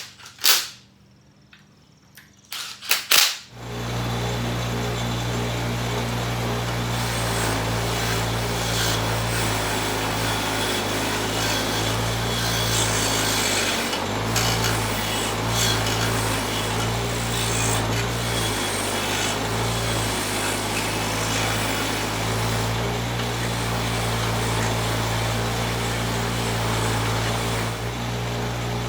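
A few sharp metal clinks, then an electric power tool starts and runs steadily with a low hum and a broad hiss, dipping briefly a couple of times.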